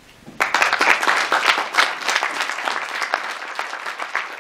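Audience applauding. The applause breaks out about half a second in and slowly tapers off.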